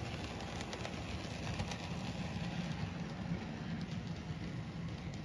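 N scale model freight train running past on its track: a steady low hum with scattered faint clicks as the cars roll over the rails and turnouts.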